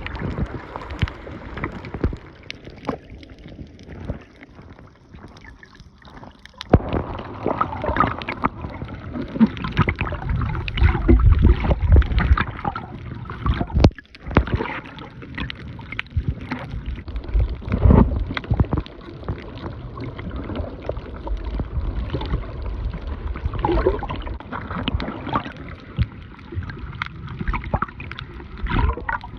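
Seawater sloshing and gurgling around a camera filming in the sea, in uneven surges, with many short clicks and knocks.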